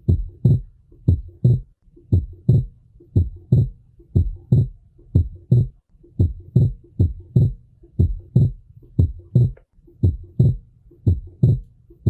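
Heart sounds in a steady lub-dub rhythm, about one beat a second, with the second sound split into a doubled 'tum-trá' in every beat. This is fixed splitting of S2: the split stays the same through inspiration and expiration, a sign of disease most often tied to an atrial septal defect.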